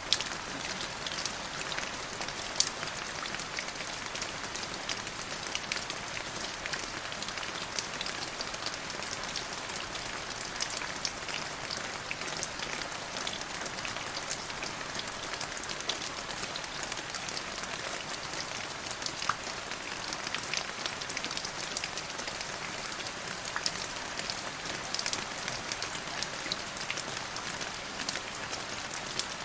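Steady rain falling, with many separate drops heard as sharp ticks over an even hiss.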